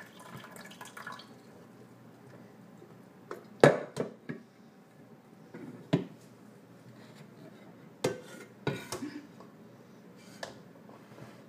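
Stainless-steel coffee carafe clunking against a countertop as a toddler handles it, about eight separate knocks, the loudest about three and a half seconds in.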